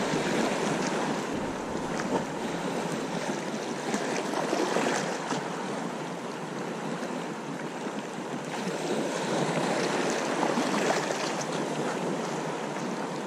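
Small sea waves washing and lapping in the shallows, with wind buffeting the microphone.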